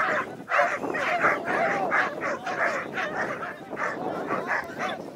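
Several hunting dogs held on leads yelping, whining and barking in rapid, overlapping calls, straining to be let loose.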